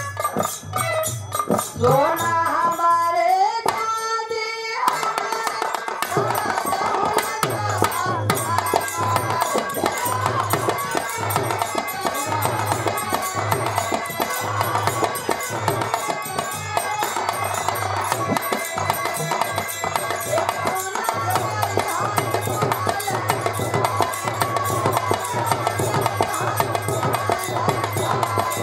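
Birha folk song performed live: a woman singing over hand drums that keep a steady beat. The sung line slides in pitch at the start, and the accompaniment thickens about five seconds in.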